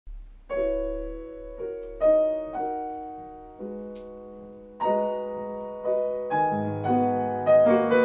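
Grand piano playing a slow run of chords, each struck and left to ring and fade; lower bass notes join in about six and a half seconds in.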